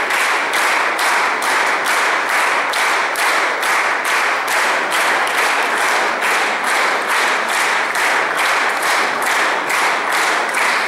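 Audience applauding, the clapping falling into a steady rhythm of about two to three claps a second.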